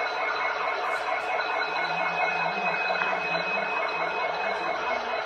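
Steady running noise inside a moving locomotive cab, a constant rumble and hiss with a thin high whine held throughout.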